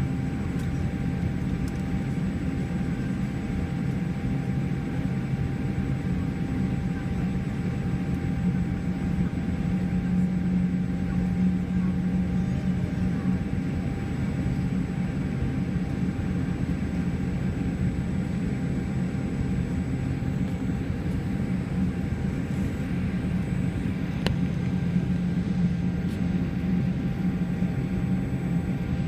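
Steady low rumble of a Boeing 787 Dreamliner's cabin while the airliner taxis, its jet engines running low, with a low drone that swells twice for a few seconds.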